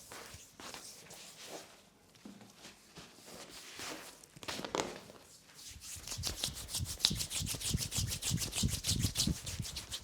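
Hands rubbing briskly over skin in a body massage: faint, scattered strokes at first, then from about six seconds in a fast, even rhythm of strokes, several a second.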